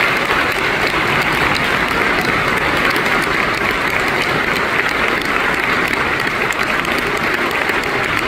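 A large theatre audience applauding steadily, a dense, even clapping with no break.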